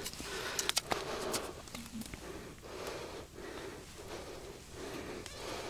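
An angler's quick, rhythmic heavy breathing close to the microphone while fighting a large fish, with a few sharp clicks in the first second or so.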